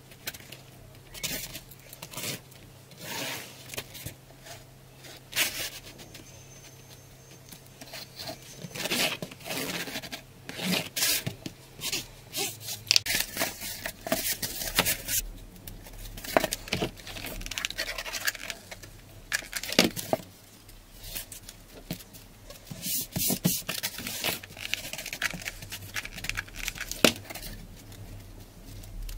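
Blade slicing through cardboard in irregular strokes, with cut cardboard strips scraping and rubbing as they are pulled apart and handled.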